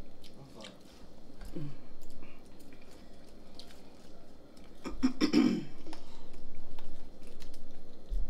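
Close-miked chewing and biting of French fries: small wet clicks and crunches of eating. A brief vocal sound comes about five seconds in.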